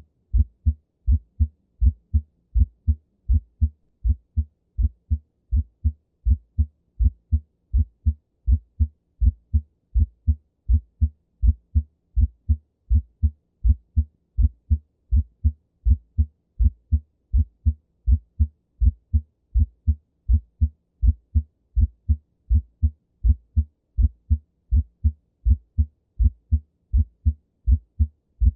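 Heart sounds through a stethoscope: a steady, regular lub-dub rhythm of short low thuds, in which the first sound (S1) is split, the mitral and tricuspid valves closing a moment apart.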